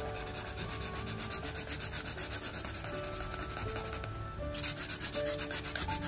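Felt-tip marker scribbled rapidly back and forth on paper, colouring in a shape, several strokes a second, with a short pause about four seconds in.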